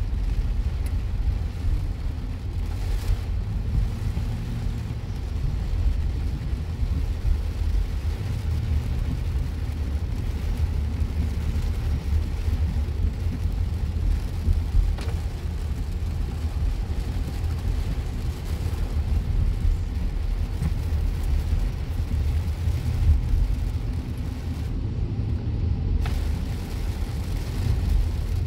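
Steady low rumble of a car driving on a rain-soaked highway, heard from inside the cabin, with rain hitting the windshield.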